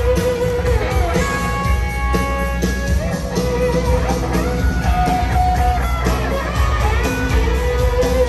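Live country-rock band playing through a stadium sound system, guitar to the fore, heard from far back in the crowd.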